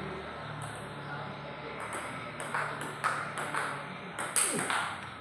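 Table tennis ball clicking off the table and paddles: several sharp ticks at uneven intervals, the loudest about four seconds in.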